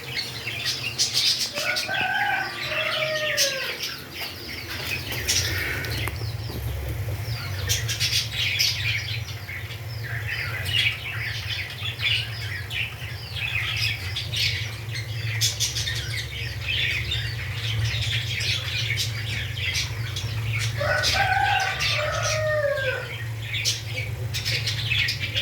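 Pet birds chirping rapidly and continuously, a dense chatter of short high chirps. Twice, about a second in and again near the end, a longer call glides up and down in pitch over the chatter, and a steady low hum runs underneath.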